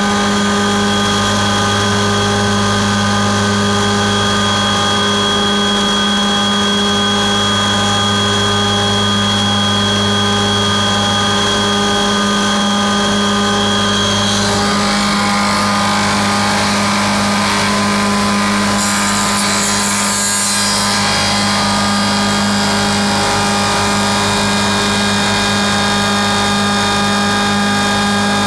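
SAC F60 window-making machine running: its electric motors and spindles hum steadily, with a high whine that stops about halfway through, followed by a rougher, noisier stretch for several seconds.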